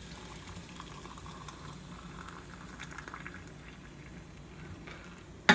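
Boiling water bubbling and pattering steadily in its pot, with one sharp knock right at the end.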